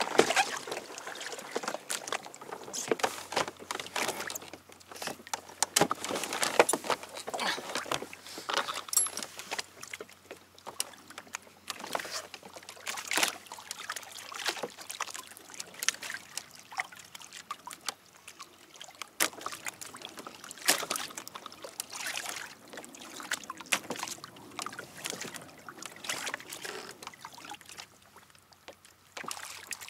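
Water lapping and splashing against the hull of an anchored kayak, with irregular small knocks and clicks.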